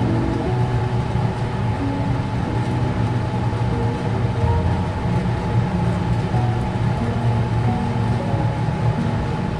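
Background instrumental music: a melody of short held notes over a steady low drone.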